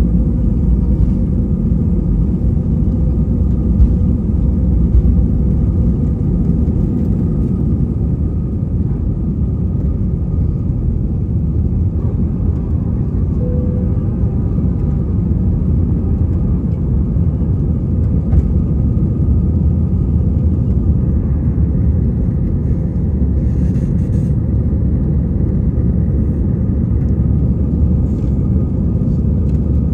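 Airbus A320-200 jet engines and airflow heard from inside the cabin: a loud, steady rumble with a steady mid-pitched engine hum over it, which suggests the aircraft is climbing after takeoff.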